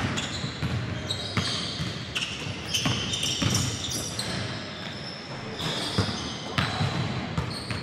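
Basketball dribbled on a hardwood gym floor: a string of irregular bounces, with short high-pitched sneaker squeaks as the players cut and a shot goes up.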